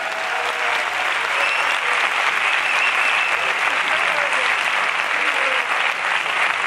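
Large theatre audience applauding steadily, a dense wash of clapping.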